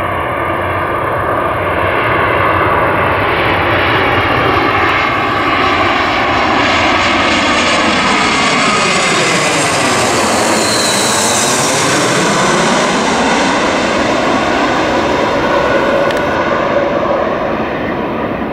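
Twin-engine Airbus A320-family jet airliner on final approach, gear down, passing low directly overhead. Its jet engine noise grows, peaks with a bright hiss and a sweeping, phasing tone as it passes over about ten to eleven seconds in, then dies away as the aircraft heads down toward the runway.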